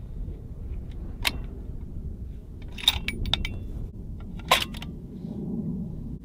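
Bolt of a bolt-action Tikka rifle being worked between shots: a few sharp metallic clicks and clinks, one about a second in, a quick cluster around the middle and another click later on.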